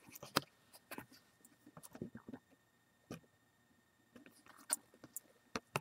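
Trading cards being handled and flipped through by hand: faint, irregular clicks, taps and brief rustles of card stock against card.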